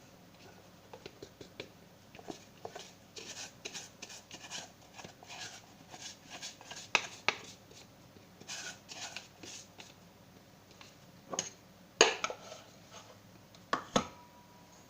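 Kitchen utensils scraping and tapping against a bowl as all-purpose flour is scooped and added: a run of light scratchy rubs and clicks, with two louder knocks near the end.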